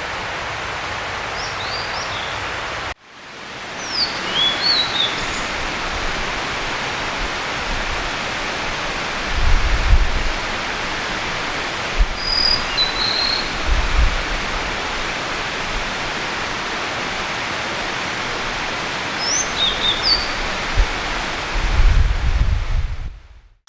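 Blue-and-white flycatcher song: short, clear phrases sung four times, faint behind a steady rushing noise like running water. The sound drops out for a moment about three seconds in, and a few low rumbles come through near the middle and the end.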